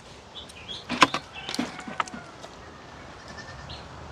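Short high bird chirps, with a few sharp knocks, the loudest about a second in and another about two seconds in.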